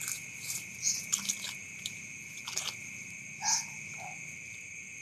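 Night-time insect chorus, a steady high-pitched drone, with a handful of short, sharp sounds at irregular moments.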